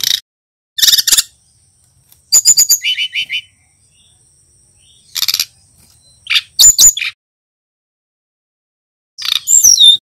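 Brown-chested jungle flycatcher singing in six short phrases of quick, high chirps and gliding whistles separated by pauses, one phrase a fast run of falling notes.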